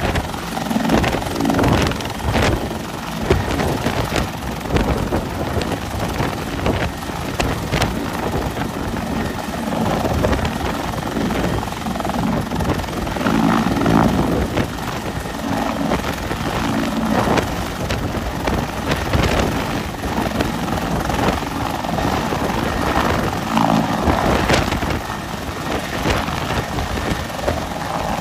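Bell CH-146 Griffon (Bell 412) twin-turboshaft helicopter hovering low overhead, its four-blade main rotor beating rapidly over the steady turbine and rotor-wash noise. Near the end it begins to climb away.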